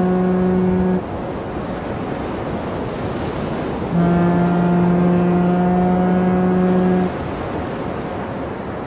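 Mull of Galloway lighthouse foghorn sounding: a steady, low blast ends about a second in, and a second blast of about three seconds follows, over a steady wash of sea.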